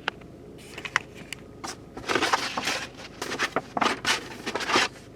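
Handling noise: a few sharp clicks, then bursts of rustling and crinkling as objects are moved about.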